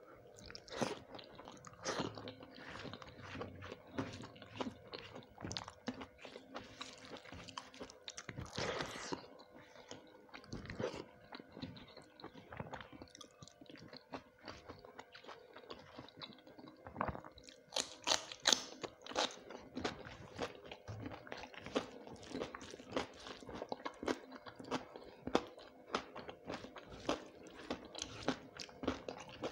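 Close-miked chewing of a hand-eaten meal of rice and fried vegetables: a steady run of crunchy bites and wet mouth sounds, with a louder cluster of crunches a little past the middle.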